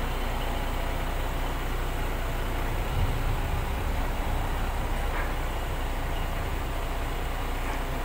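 Heavy vehicle engine running steadily with a low rumble, which swells briefly about three seconds in.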